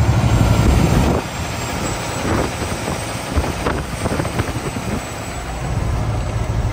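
Semi truck's diesel engine running with a steady low rumble and road noise, loudest for about the first second and then easing.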